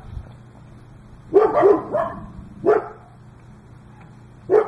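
A dog barking in short, separate barks: a quick pair about a second and a half in, another just under three seconds in, and one more near the end.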